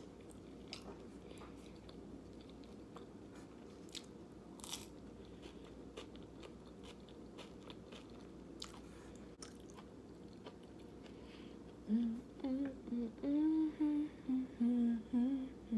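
A person chewing a mouthful of food, with scattered small crunches and clicks. About twelve seconds in, she hums a string of short notes with her mouth full.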